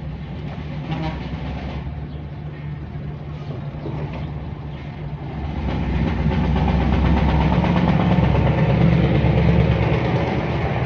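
Street traffic: a steady low engine hum, then a box truck passing close by, its engine growing louder from about halfway through.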